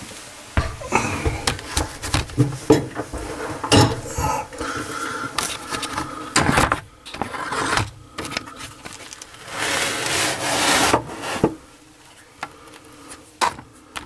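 Irregular clunks, knocks and rubbing as drain parts and hands are worked around the pipes and cabinet under a bathroom sink, with a longer scraping rustle about ten seconds in.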